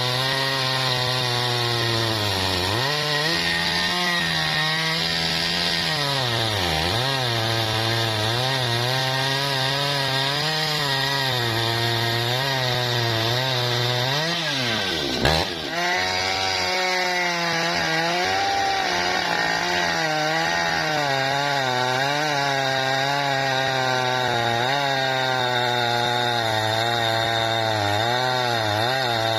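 Jonsered chainsaw cutting lengthwise through a bendo log, the engine held at high revs under load. Its pitch sags several times as the chain bogs in the tough wood, dropping furthest about halfway through before picking back up.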